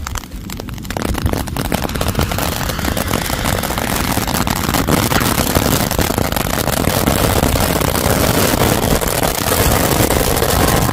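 Lit firecracker burning with a continuous loud roaring hiss laced with dense crackling, building up over about the first second and holding steady until it stops suddenly at the end.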